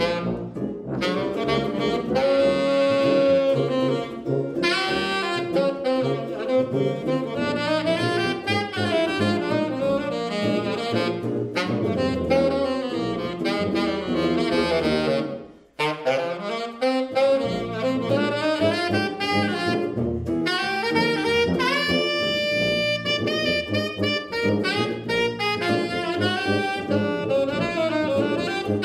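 Small jazz combo playing a blues: saxophone playing the lead over a tuba bass line and electric guitar, with a brief break about halfway through.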